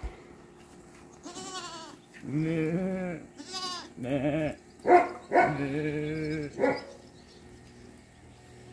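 Domestic goats bleating: about seven quavering calls of differing pitch, some high and some low, from several animals.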